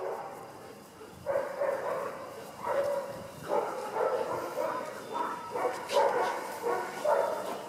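Dog barking in a string of about six short bursts, starting a little over a second in.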